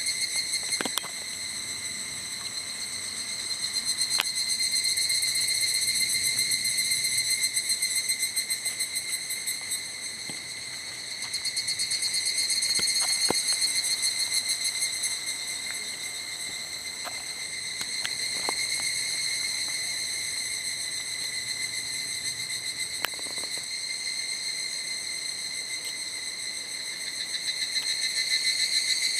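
Insects singing: a continuous fast-pulsing high trill that swells and fades, with a few faint light clicks.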